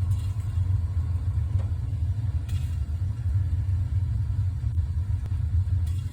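Gas water heater burner firing with a steady low rumble, just after its pilot light was relit. The owner takes the sizzling and orange flame for moisture burning off inside.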